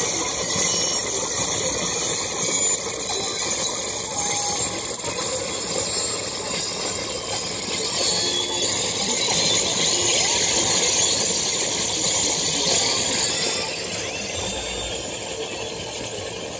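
Con Brio digital synthesizer playing back a sequence through a monitor speaker: a dense, layered tone with glitching, jittery elements and hissing noise in it, growing quieter over the last few seconds.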